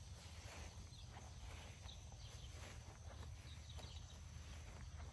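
Quiet outdoor ambience with faint footsteps in grass and a low steady rumble.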